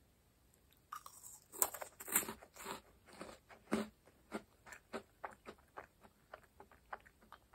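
Crisp meringue cookie bitten into and chewed close to the microphone: it is bitten about a second in, crunches loudly for a couple of seconds, then gives way to softer, evenly spaced chewing clicks that fade.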